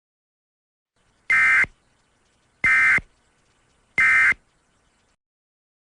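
Emergency Alert System end-of-message data bursts: three identical short, buzzy digital warbles, each about a third of a second long and about a second and a half apart. This is the SAME "NNNN" end-of-message code that closes an EAS alert.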